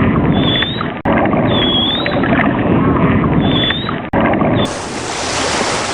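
Dolphin whistles, short rising-and-falling squeals repeated again and again over loud churning water noise, changing about 4.5 seconds in to a steady rushing wash of water and wind.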